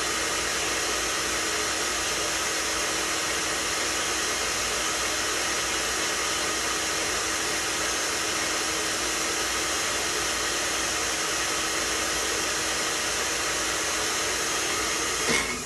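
Single-serve blender motor running steadily as it purees a thick avocado and coconut mixture, then switched off near the end, the motor winding down.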